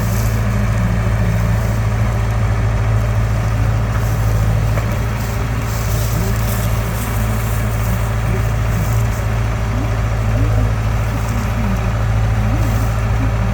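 Diesel engine running steadily at a constant speed, a low, even hum with no revving.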